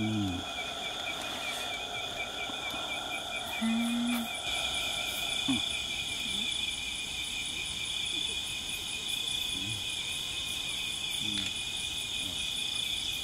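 Crickets chirring in a steady chorus at several pitches, one of the trills pulsing rapidly.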